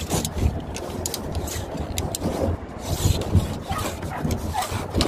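Irregular scraping, rubbing and clicking as a measuring tape is run out, with low thumps mixed in.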